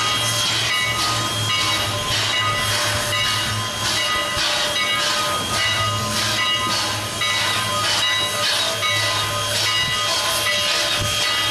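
Canadian National 89, a 2-6-0 Mogul steam locomotive, chuffing: hissy exhaust beats in a steady rhythm of a little under two a second, over a low steady rumble and faint steady high tones.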